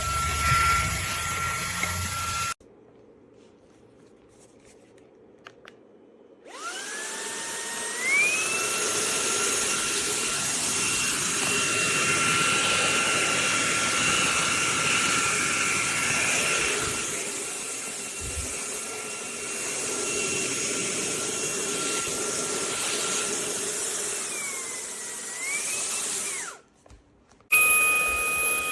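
Fanttik Slim V8 Apex cordless handheld vacuum's motor running with a high whine. It stops a few seconds in, spins up again with a rising whine about six seconds in and runs steadily. Near the end its pitch dips and climbs back, and after a brief break it runs again with a higher whine.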